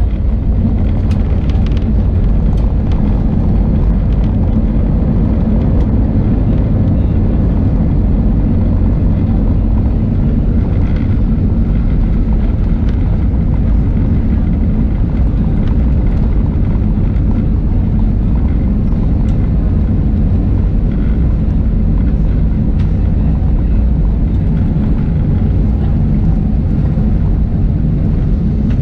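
Steady low rumble in the cabin of an Airbus A320-232 taxiing, with its IAE V2500 engines running and its wheels rolling over the taxiway. A few faint ticks sound here and there.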